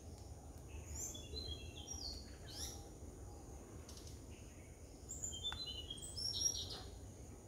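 Birds chirping and calling in short high notes, several in quick runs, over a steady low background rumble.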